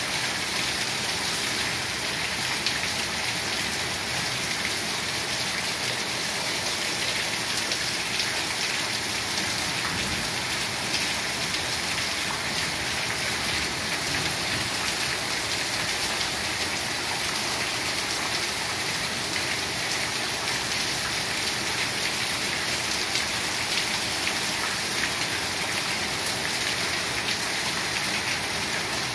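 Heavy rain falling steadily, a dense, even hiss of drops.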